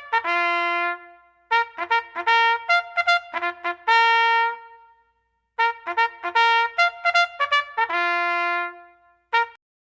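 Music: a solo trumpet playing three phrases of quick short notes, each ending on a long held note, with a last short note near the end before it stops.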